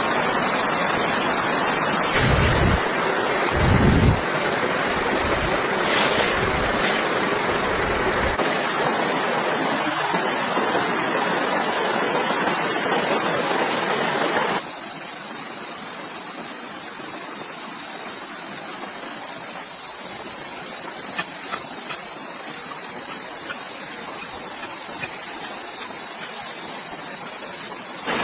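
Insects buzzing steadily at a high pitch in a forest, over a noisy wash of outdoor ambience that drops off abruptly about halfway through. A few low thuds come in the first few seconds.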